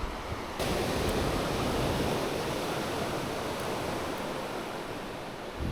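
Surf: a wave breaks about half a second in, then washes and hisses, slowly fading.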